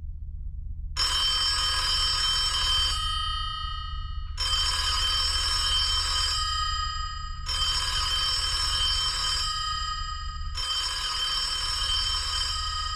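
Payphone bell ringing: four rings of about two seconds each, the first about a second in, the metallic tone dying away in each short pause between rings. A low steady hum runs underneath.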